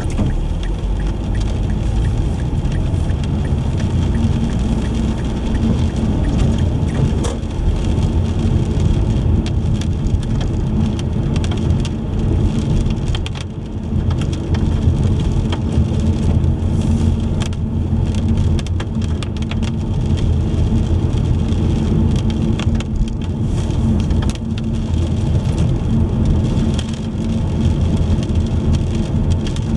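Car driving on wet roads in the rain: a steady low rumble of road and engine noise, with scattered small taps of raindrops throughout.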